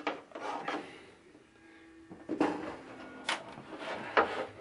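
Handling noise: light knocks and rustles with a quieter stretch in the middle, as the opened TV and its loose back cover are moved about.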